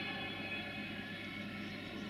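Electric freight locomotives approaching at low speed, with a low steady hum carrying several steady tones.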